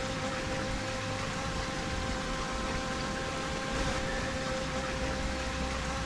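Steady rush of flowing creek water, an even hiss with a faint steady hum beneath it.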